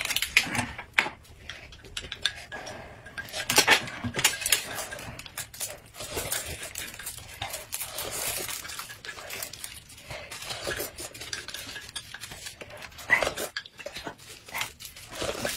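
Utensils clinking and scraping against bowls and dishes while eating: irregular clicks and taps, with a few louder knocks.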